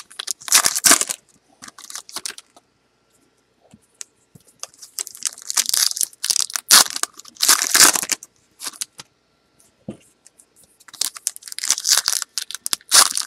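Trading-card pack wrappers crinkling and tearing by hand, in short bursts of crackle with pauses between as packs are opened and cards handled.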